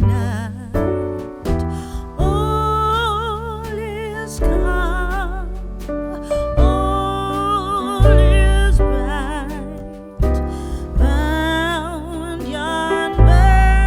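Background music: a wavering melody line over deep bass notes and keyboard chords.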